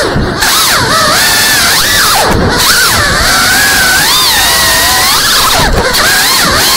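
GEPRC CineLog 35 cinewhoop's brushless motors and ducted propellers whining, the pitch swooping up and down with the throttle. The whine cuts back briefly about three times, each time with a short low rumble, as the drone flips and rolls.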